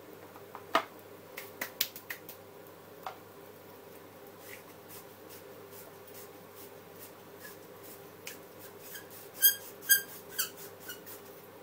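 Scattered sharp clicks and taps of a seasoning shaker being shaken and handled over a baking tray of sliced potatoes, with a cluster of louder clicks near the end. A faint steady hum lies underneath.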